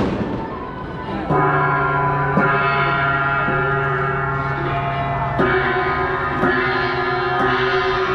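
Procession gongs struck about once a second, each strike's ringing tones carrying on under the next, starting about a second in.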